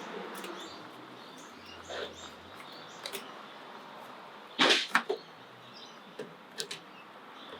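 Handling noise from work on a car door and its removed side mirror: scattered light clicks and knocks, with a louder clunk and rattle a little past halfway.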